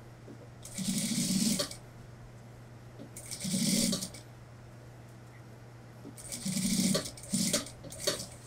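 Industrial lockstitch sewing machine sewing a sleeve into a suit jacket in short runs: four brief bursts of stitching, each a second or less, with pauses as the fabric is turned, then a few clicks near the end. A steady low hum runs underneath.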